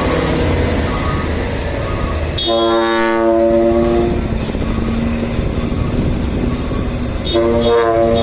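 Dump truck's trumpet-style air horn blowing two long blasts over its running diesel engine, the first about two and a half seconds in and lasting about a second and a half, the second starting near the end.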